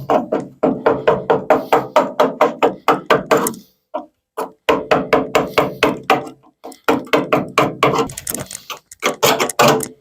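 Rapid hammer blows on the steel inner wing of an MGB, about five a second in three runs, each blow leaving the panel ringing. The hammering is knocking off the rusted remnants of a bolt and captive nut.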